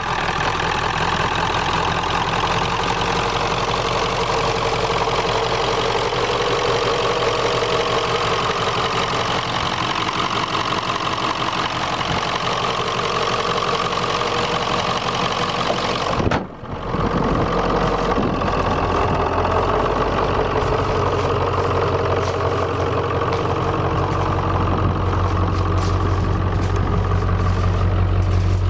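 1996 Ford F-350's 7.3 L Power Stroke turbo diesel V8 idling steadily, with a brief dip in level partway through. The low exhaust rumble grows stronger near the end.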